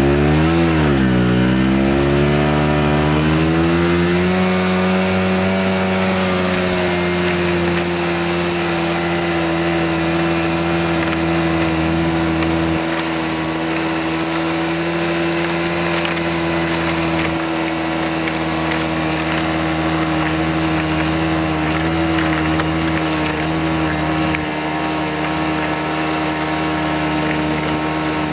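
Snowmobile engine running as the machine travels along a packed snow trail. Its pitch dips and rises in the first two seconds, climbs until about four seconds in, then holds steady at cruising speed.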